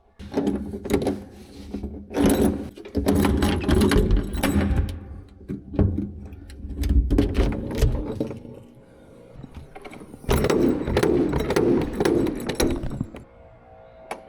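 A ladder being handled, with repeated clattering and rattling that comes in several bursts of clicks and knocks over dull thumps.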